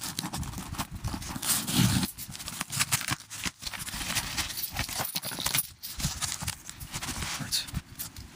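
Cardboard box being handled and opened close to the microphone: irregular scrapes, knocks and rustles, with heavier bumps in the first couple of seconds.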